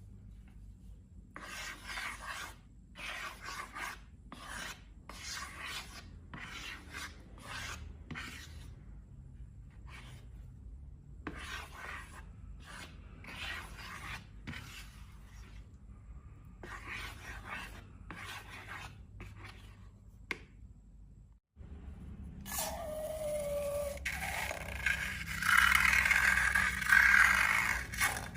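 Runs of short rubbing and scraping strokes, in quick series with brief gaps. After a moment of silence near the end, a louder, denser scraping begins with a short sliding squeak.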